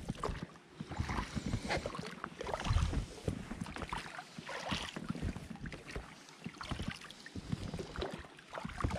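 Inflatable boat being rowed: water splashing with each oar stroke, and small knocks from the oars, strokes coming every second or two.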